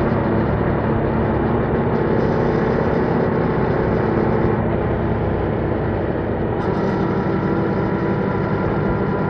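Yamaha MT-07's 689 cc parallel-twin engine running through its stock exhaust at fairly steady revs while riding.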